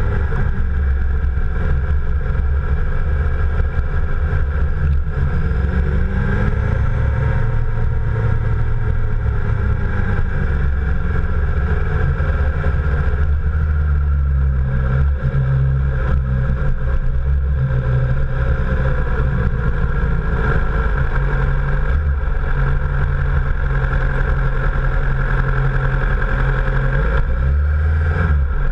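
Motorcycle engine running steadily while riding at town speed, its pitch rising and easing back once a few seconds in, under a heavy rumble of wind on the action camera's microphone.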